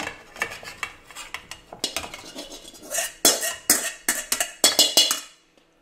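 Wire spider strainer scraping and clinking against a steel wok as stir-fried squid rings are scooped out and tipped into a dish, a quick run of small clicks and scrapes that grows into louder clatters about three seconds in, then stops shortly before the end.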